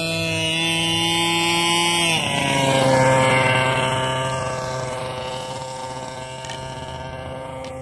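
The small two-stroke gas engine of a 1/5-scale Rovan Losi 5ive-T clone RC truck running at high revs. Its pitch drops sharply about two seconds in, it is loudest a second later, then it fades steadily as the truck drives off across the field.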